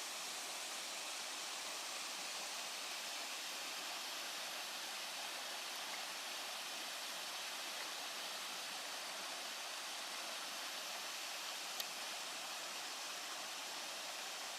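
Waterfall of three falls about 10 m high, a steady, even rush of falling water, with one small click near the end.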